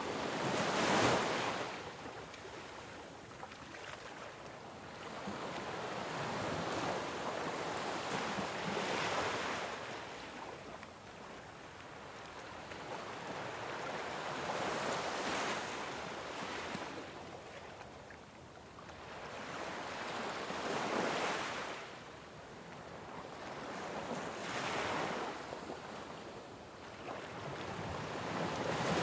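Ocean waves washing onto a shore, each wave swelling and fading in a slow rhythm about every five or six seconds, with a soft hiss between them.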